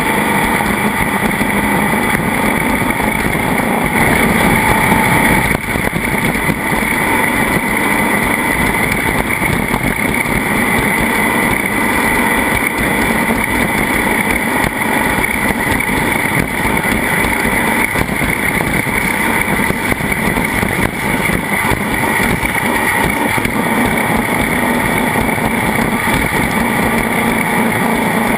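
A vehicle engine running loud and steady at an unchanging speed, with no let-up.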